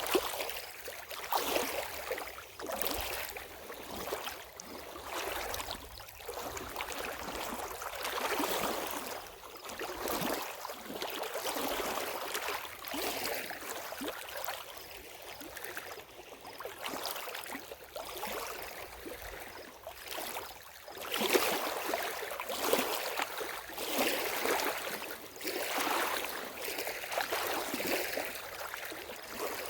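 Small lake waves lapping and splashing at the water's edge, in irregular surges every second or two.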